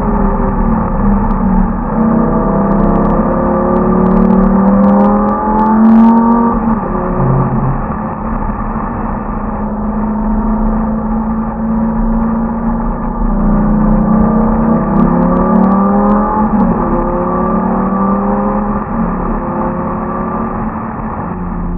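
Lamborghini Gallardo LP 570-4 Superleggera's V10 engine under way, climbing in pitch through the gears and dropping back at each upshift, with a steadier cruising stretch in the middle. It is heard from over the engine cover.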